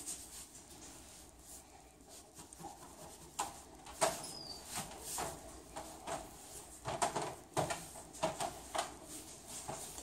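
Paintbrush strokes on a wall: the bristles swish and scrape in short, irregular strokes, sparse at first and coming thicker from a few seconds in.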